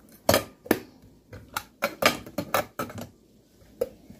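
Kitchenware being handled: a quick run of sharp clinks and knocks from a china cup and saucer and a glass jar, about ten over the first three seconds, then one more near the end.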